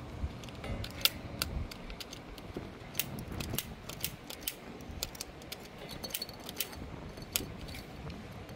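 Long-nosed utility lighter clicking irregularly, more than a dozen times, as it is triggered at a gas fire pit's burner ring. No whistle comes from the new gas line.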